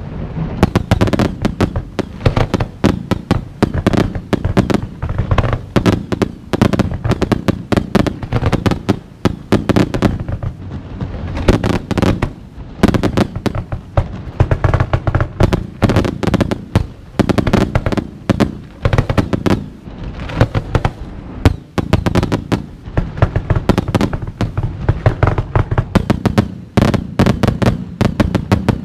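Fireworks going off in rapid, unbroken succession: cakes firing volleys of shots that burst overhead, many sharp bangs and pops a second.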